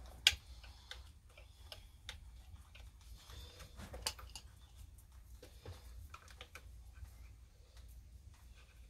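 Scattered light clicks and taps of hand tools and small parts being handled on a chainsaw during carburetor work, with one sharp click about a quarter second in and another about four seconds in.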